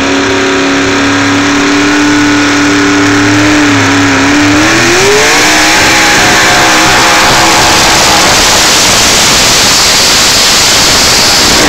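Pickup truck engine running at full throttle while pulling a weight-transfer sled down a dirt track. The engine note holds steady, dips and then climbs about four to five seconds in, and turns into a louder, rougher noise as the truck comes close.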